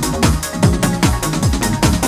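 Electronic dance music: a deep kick drum that drops in pitch on each hit, about two to three times a second, over fast hi-hats and held synth and bass notes.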